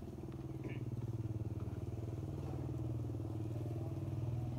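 A motor vehicle's engine running at a steady pitch, growing gradually louder.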